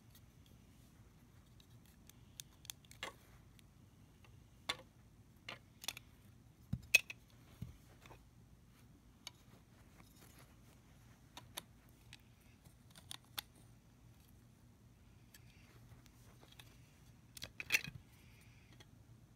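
Plastic LEGO bricks clicking and clattering as they are handled and pressed together, in scattered sharp clicks with a short cluster of louder ones near the end.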